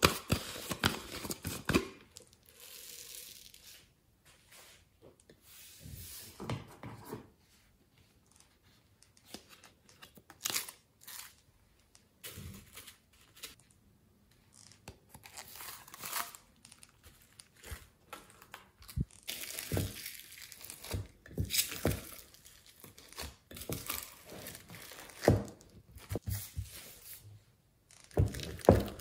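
Plastic container and foam beads being squeezed and handled, then slime with foam beads mixed by hand. They crinkle and crackle in irregular bursts, with short quiet pauses and a few sharp clicks.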